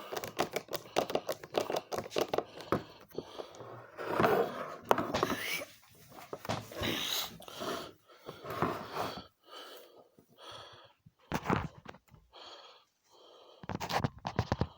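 Clicks, taps and scrapes of a screwdriver and hands working at the grip screw of a Heritage Rough Rider single-action .22 revolver, with short breaths in between, more spaced out in the second half.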